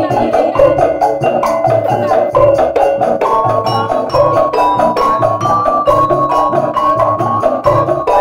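Thoklik music: bamboo and wooden percussion played in a fast, steady rhythm of clacking strokes over low drum beats, with a melody of held notes coming in about three seconds in.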